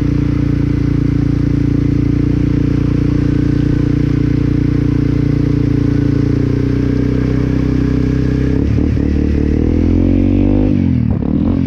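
Honda CRF250L's single-cylinder four-stroke engine running steadily at low speed while the bike wades through flood water on the road, with a hiss of water spraying off the front wheel. About eight and a half seconds in, the engine revs rise as the bike accelerates out onto dry road.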